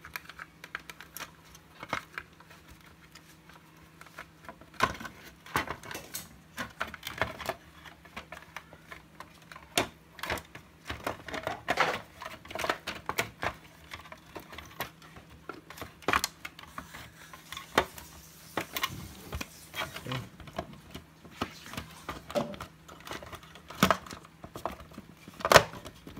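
Irregular plastic clicks, taps and knocks from the black plastic housing of an APC Back-UPS 625 being handled and its cover halves fitted back together.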